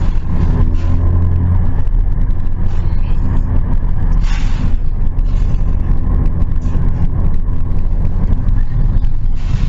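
Car engine and drivetrain running at a steady pace with a low, even hum, and a short hiss about four seconds in.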